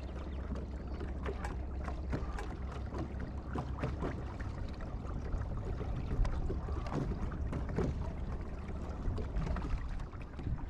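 Water lapping and slapping in quick small splashes against the hull of a small fishing boat, over a steady low rumble.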